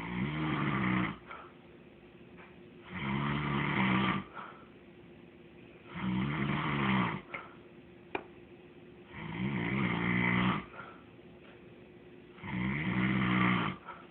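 Snoring: five snores, each lasting about a second, coming steadily about every three seconds, with a short click about eight seconds in.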